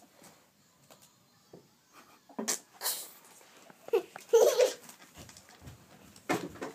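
A pet ferret hopping about among toys: short rustling knocks about two and a half seconds in, then a brief burst of low, clucking dooking about four seconds in, the loudest sound, and another rustle near the end.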